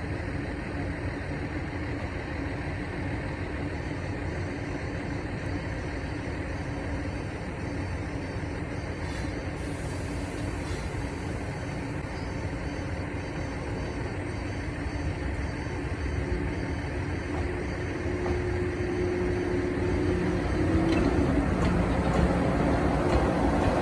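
Steady low rumble of road vehicles waiting at a closed level crossing. In the last several seconds it grows louder and a steady hum comes in as a 415 series electric train draws near.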